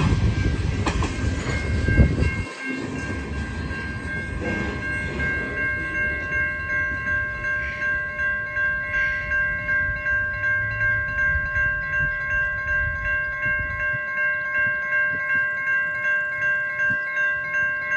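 The last cars of a freight train rumble and clatter over the grade crossing for the first couple of seconds, with a sharp knock as the end passes. Then a railroad crossing warning bell rings in an even, rapid rhythm, as the signals stay active after the train has cleared.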